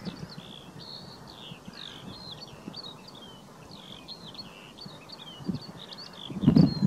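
Skylark singing, a continuous rapid stream of high chirps and trills. Near the end, gusts of wind buffet the microphone with a low rumble.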